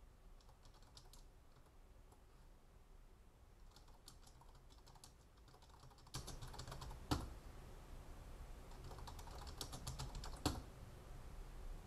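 Computer keyboard typing in short runs of keystrokes, with two sharper, louder key strikes about seven and ten and a half seconds in.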